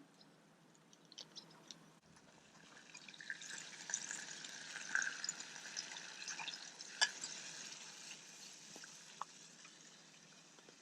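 Food sizzling over a campfire, with light crackling and scattered pops. It swells a few seconds in, gives one sharp pop near the middle, then dies down.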